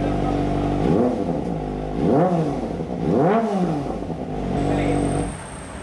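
Kawasaki ZX-25R's 250 cc inline-four idling through an aftermarket Villain AR slip-on muffler, blipped three times about a second apart, each rev rising and falling back to idle. The engine note cuts off near the end.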